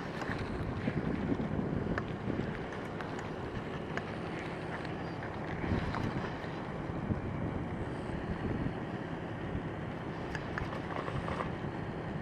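Steady wind noise on the microphone, with a few faint clicks.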